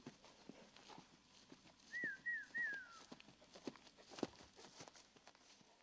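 Horses' hooves thudding on turf as they come up to the fence, a scatter of soft knocks with a sharper one about four seconds in. About two seconds in, three short whistled notes, the last sliding down.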